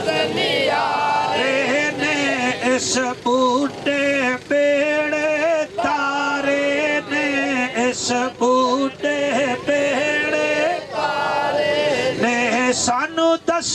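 A man chanting verses in a melodic, sing-song voice, holding long notes with short breaks between phrases.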